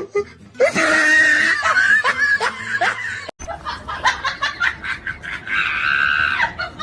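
People laughing, in quick repeated bursts, with a sudden break about halfway through.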